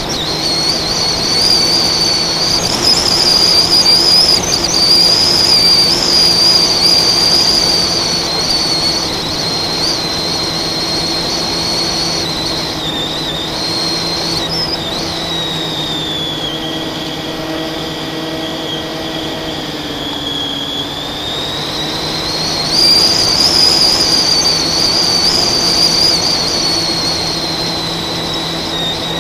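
FPV racing quadcopter's brushless motors and propellers running with a high, continuous whine. The whine sinks in pitch and gets quieter as the throttle comes off around the middle, then climbs back and gets louder a few seconds before the end.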